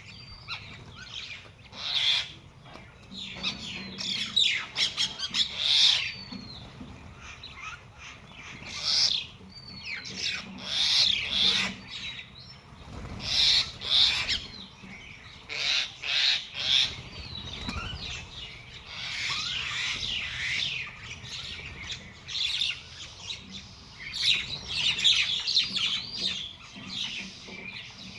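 Small birds chirping and squawking, several calls overlapping in repeated bursts.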